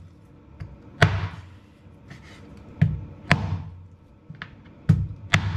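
Black Dragon butcher's cleaver chopping through bony meat on a cutting board: about five sharp chops at irregular intervals, with lighter knocks between.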